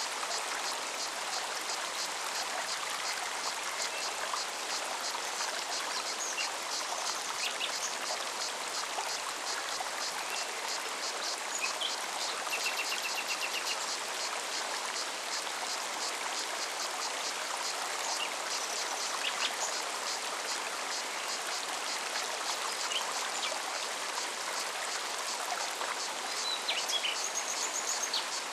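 A forest mountain stream flowing steadily, with a cicada's fast, even pulsing high above the water noise. A few short bird chirps come through, including a brief trill about halfway.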